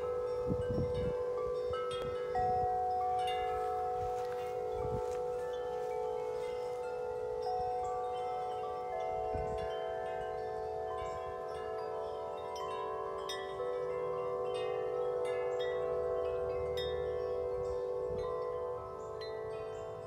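Large tuned tubular wind chimes (Corinthian Bells and Bells of Vienna) ringing in the breeze. The tubes are struck again and again, and their tones overlap into continuous layered ringing over a deep tone that holds steady throughout. Louder fresh strikes come about two and a half seconds in and again past the middle.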